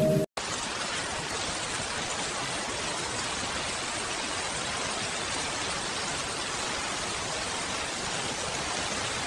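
Steady rain, an even unbroken hiss, starting suddenly after a short drop to silence just after the start.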